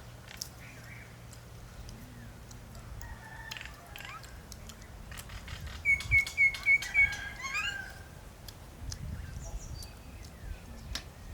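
A bird calling: a quick run of five short, loud, high notes about six seconds in, followed by a brief rising note. Scattered light clicks and knocks are heard around it.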